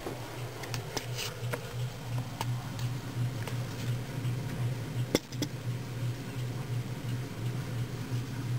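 A steady low hum with scattered light clicks and knocks; the sharpest click comes about five seconds in.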